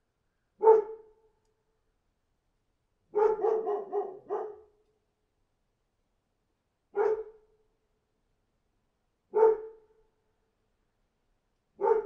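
A dog barking: single short barks about a second in, around seven seconds, around nine and a half seconds and at the very end, with a quick run of barks around three to four and a half seconds.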